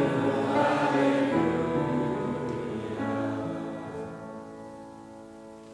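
A congregation singing the end of a hymn; the last chord is held and slowly dies away.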